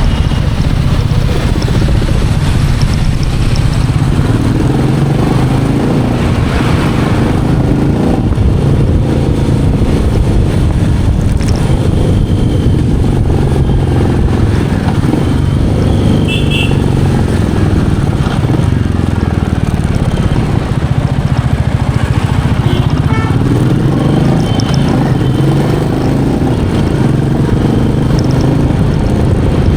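Royal Enfield Meteor 350's single-cylinder engine running under way while the bike is ridden, engine speed rising and falling with the throttle.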